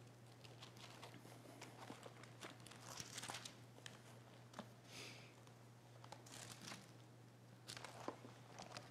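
Faint paper rustling of Bible pages being turned to find a passage, several soft page flips over a low steady hum.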